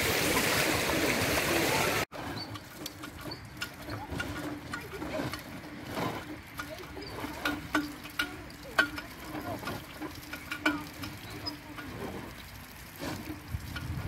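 Pool water splashing for the first two seconds. It then cuts off suddenly and gives way to quieter water trickling from a playground hand pump, with scattered clicks and knocks.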